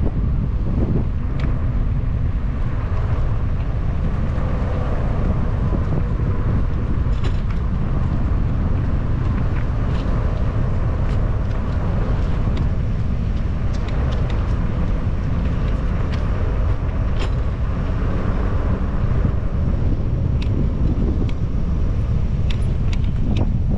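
Steady wind noise on the microphone of a moving bicycle, mixed with tyre noise and nearby car traffic, with occasional light clicks and rattles.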